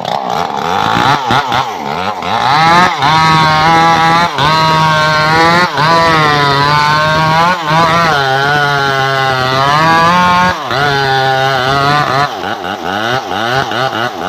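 Power saw running at full speed while cutting a trembesi log, a loud high-pitched motor note that wavers as the cut loads it, with several brief dips in between.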